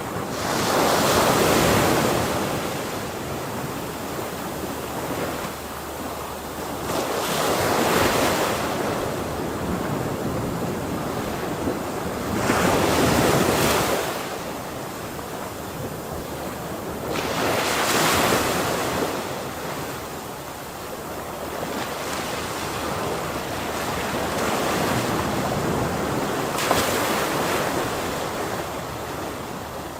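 Ocean waves breaking and washing ashore in a continuous rush, with a louder surge every five seconds or so through the first two-thirds and gentler swells after, under some wind noise.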